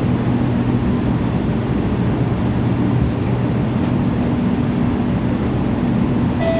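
Steady hum of a metro train standing at a platform with its doors open, its onboard equipment running. Right at the end a clear electronic tone begins: the start of the door-closing chime.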